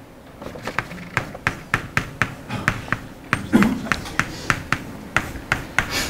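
Chalk tapping on a blackboard while figures are written, a quick run of sharp taps about four a second.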